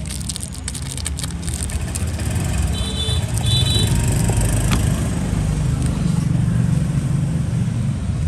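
Low, steady engine rumble of a motor vehicle, growing louder about three seconds in, with two short high beeps and a single click shortly after.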